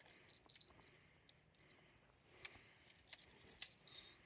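Near silence with a few faint, sharp clicks and taps.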